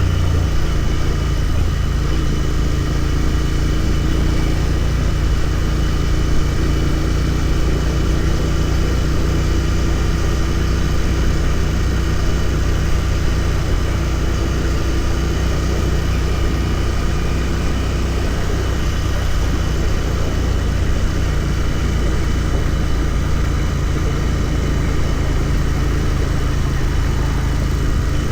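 Royal Enfield Continental GT 650's 648 cc parallel-twin engine running at a steady pitch under way, with a steady rushing noise over it.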